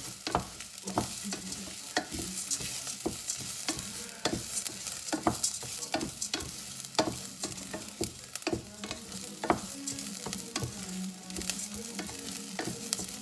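Wooden spatula stirring and scraping risotto rice in a stainless steel pot, with many short knocks against the pot, over a steady sizzle of the rice frying.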